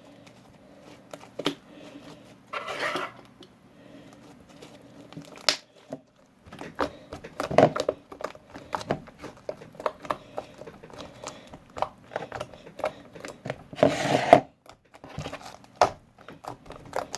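Close-up handling noises while making slime: irregular clicks, taps and crinkling, with louder rustling stretches about 3, 7.5 and 14 seconds in.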